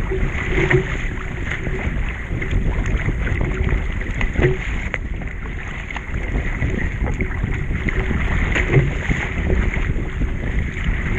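Wind rushing over the microphone, with water splashing and lapping around a surf ski kayak on the open ocean.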